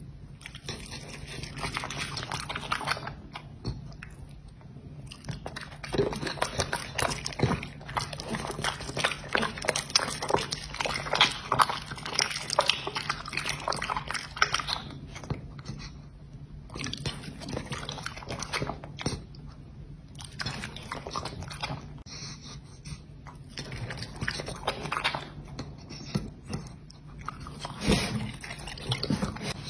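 A dog chewing and biting raw meat and fish: quick runs of sharp chewing clicks, broken now and then by short pauses, over a faint steady low hum.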